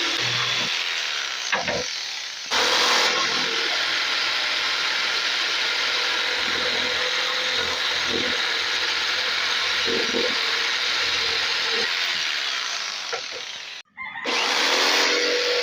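Electric jigsaw running steadily, its blade cutting through wood, with a sudden short break near the end.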